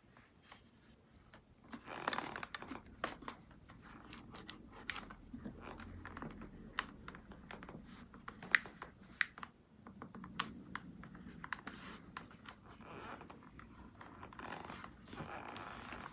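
Scratching, rubbing and many small sharp clicks as an adhesive LED light strip is handled and pressed onto a motorcycle helmet's shell.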